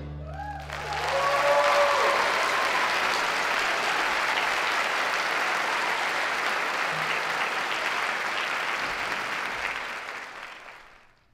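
Audience applauding a high school orchestra, starting as the orchestra's final chord dies away. A few cheers are heard near the start, and the clapping fades out near the end.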